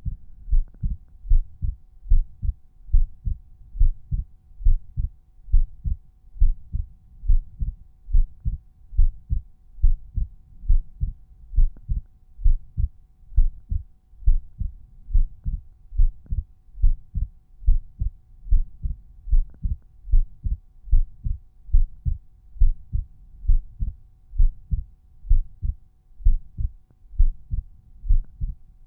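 Resting human heartbeat heard through the chest wall at Erb's point. It is a regular, steady lub-dub, each beat a pair of low thumps. A faint steady hum sits behind it.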